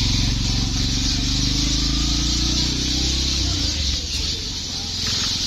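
A motor vehicle's engine running, its pitch rising a little before it fades out about three and a half seconds in, over a steady high hiss.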